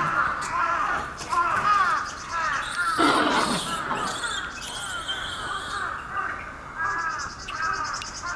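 A troop of Japanese macaques calling: many short, arched coo calls overlapping one another throughout, with a louder, rougher call about three seconds in.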